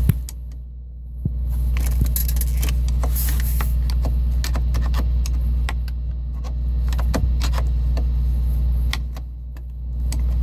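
Screwdriver clicking and scraping in the shift-lock release slot of a 2008 Chrysler Town & Country while the gear lever is worked, trying to free the shifter into neutral: scattered light metallic clicks and rattles over a steady low rumble.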